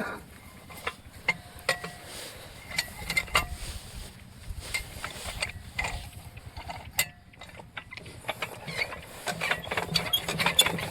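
Irregular metallic clicks and clinks with a few short squeaks, as tools and parts are handled during repair work on a Lister diesel pump set; the engine is not running.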